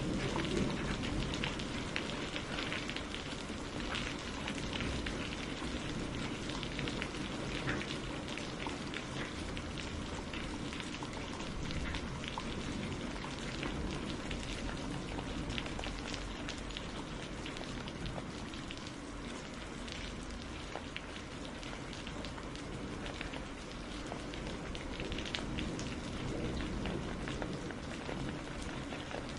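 Steady rain falling, with many separate drop ticks over an even hiss.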